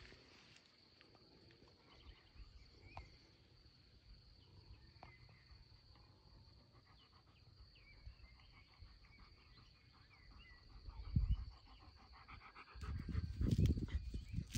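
Quiet meadow ambience: a steady high-pitched insect buzz with scattered small bird chirps. Low rustling and bumps come briefly about eleven seconds in and again near the end.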